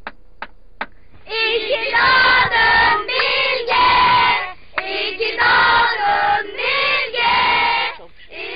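A group of children singing together loudly in unison, in short phrases with brief pauses between them. Three short clicks come first, within the first second.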